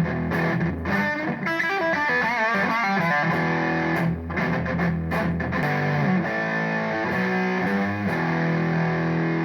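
Electric guitar music with a distorted tone, with a sustained lead line that is bent and shaken with vibrato about a second and a half to three seconds in.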